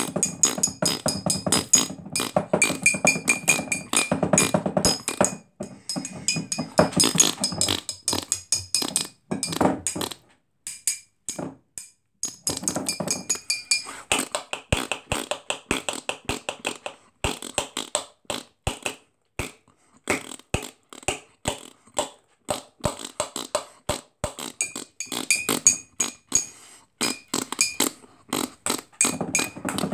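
Human beatboxing: fast mouth-made clicks and snare- and hi-hat-like hits in a steady rhythm, thinning to sparse single clicks through the middle and filling out again near the end.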